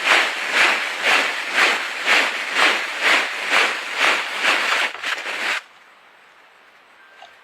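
Magnificent riflebird's display: loud rustling swishes of its wings about twice a second, which stop suddenly about five and a half seconds in.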